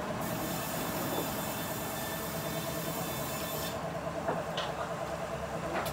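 Band sawmill blade cutting through a mahogany log: a steady rasping hiss of the cut over the mill's running drive. The hiss stops a little under four seconds in as the blade clears the log, while the mill keeps running.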